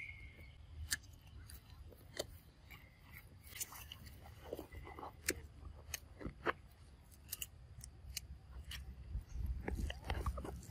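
Young macaques biting into and chewing raw cucumber: scattered sharp, crisp crunches and clicks at irregular intervals.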